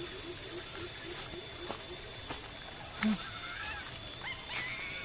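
Animal calls: a short low call repeated about three times a second for the first couple of seconds, then a few higher, wavering chirps near the end.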